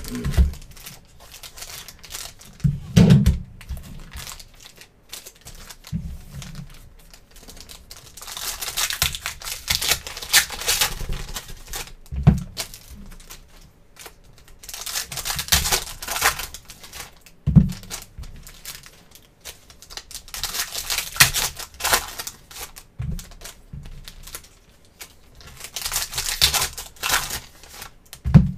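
Foil trading-card packs being torn open, their wrappers crinkling in four bursts of crackle, with short low knocks of packs and cards set down on the table between them.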